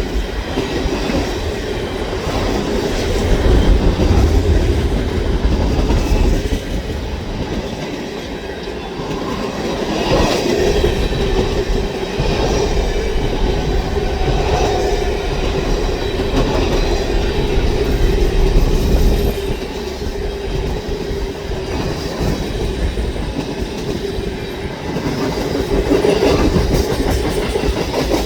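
Freight cars of a long CN manifest train rolling past: a steady rumble of steel wheels on the rails, swelling and easing a little in loudness.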